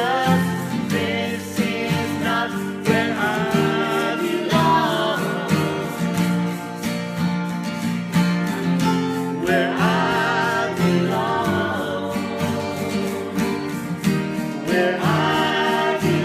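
Live band playing a worship song: steadily strummed acoustic guitar, with a singer's voice coming in in phrases about three seconds in, around ten seconds in, and near the end.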